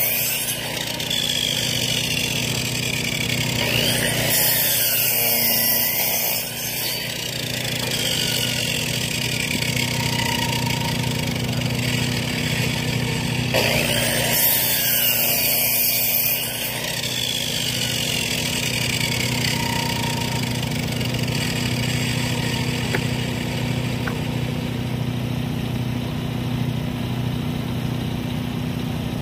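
Gasoline engine of a Timbery M100 portable bandsaw mill running steadily, with two short spells of hissing over it.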